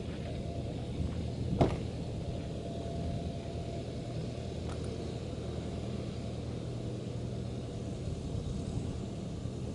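A steady low engine hum, with a single sharp knock about one and a half seconds in.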